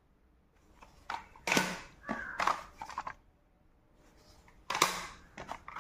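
Plastic audio cassette cases clacking as they are picked up and set down. There is a cluster of short clatters in the first half and another sharp clack near the end.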